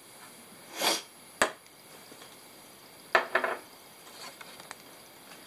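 Handling noises from a tabletop vacuum mold press while the freshly molded plastic sheet is taken out: a short rush of sound about a second in, a sharp click about half a second later, and another click with brief clattering around three seconds in.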